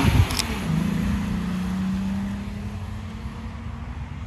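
Volkswagen Corrado accelerating away. The engine note drops with an upshift right at the start, then climbs steadily in the next gear and fades as the car pulls into the distance.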